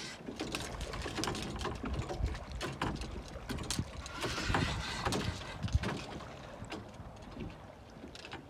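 Water splashing as a hooked paddlefish rolls and thrashes at the surface, over wind rumbling on the microphone. Scattered short clicks and knocks, with a heavier splash about four to five seconds in.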